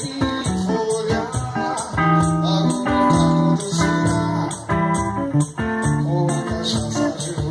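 Live electric guitar playing a melodic line of held and picked notes, over a steady beat of percussion struck on a cajón.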